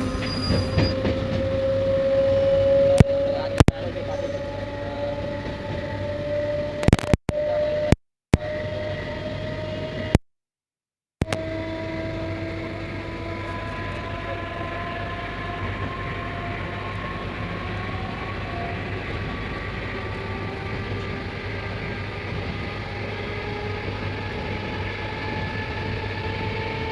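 Passenger train running with a steady rumble and a whine whose pitch climbs slowly and evenly as the train picks up speed. There are a few sharp knocks early on, and the sound cuts out briefly twice.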